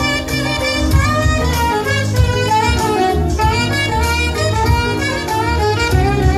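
Saxophone playing a smooth-jazz melody in flowing, falling phrases over a bass and drum accompaniment.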